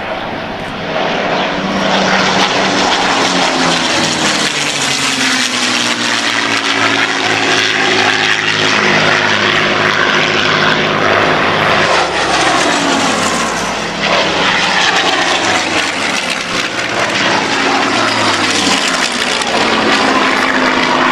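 Several Second World War fighters with Rolls-Royce Merlin V12 piston engines (Spitfires and Hurricanes) flying past. The engine note rises and falls in pitch as they pass and gets louder about a second in.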